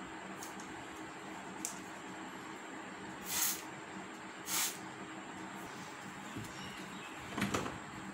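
Trigger spray bottle squirting twice, two short sprays about a second apart, then near the end a brief rustle of a paper tissue rubbed over a metal door knob, over a steady faint hiss.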